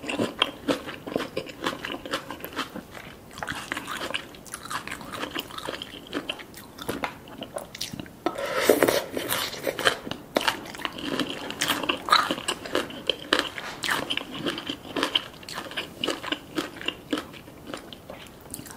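Close-miked chewing and biting of spicy green papaya salad: wet crunching with many small crisp clicks. It grows denser and loudest about halfway through.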